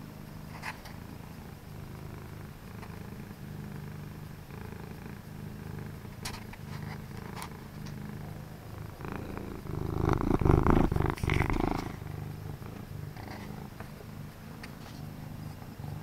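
Orange tabby domestic cat purring steadily, with a loud rustling for about two seconds just after the middle.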